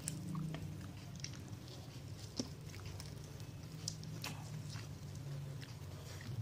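Close-up eating sounds: chewing, with scattered sharp mouth clicks and crunches, over a steady low hum.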